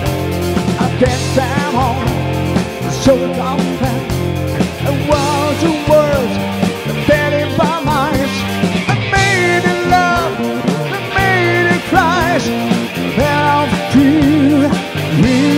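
Live rock band playing, with bass guitar, drums and keyboards under a male lead singer who sings with a wavering vibrato.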